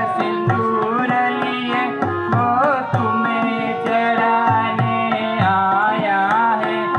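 Male voice singing a Hindu devotional song (bhajan) to Hanuman, accompanied by harmonium and tabla strokes.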